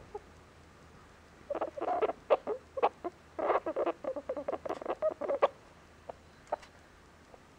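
Chipmunk making strange noises in its sleep: a quick, uneven run of short, sharp squeaks and clicks lasting about four seconds, then two single ones.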